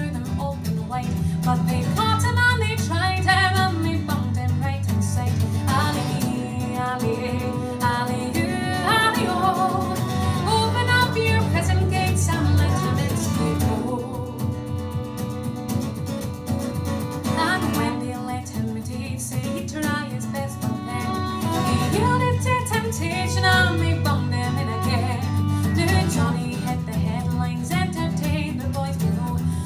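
Live folk song: a woman singing, accompanied by a strummed acoustic guitar and a fiddle.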